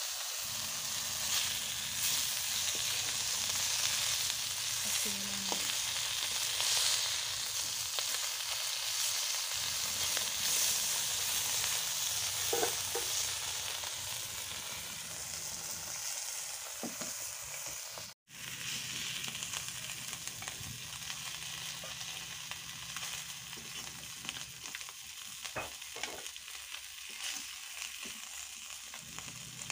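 Pieces of fish frying in hot oil in a black iron kadai: a steady sizzle that slowly dies down, with a metal spatula scraping now and then as the pieces are turned.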